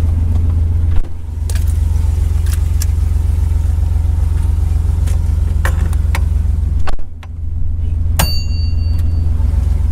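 Car engine and exhaust droning steadily while driving. The drone dips briefly about a second in and again around seven seconds, with a few light clicks and short high tones near the end.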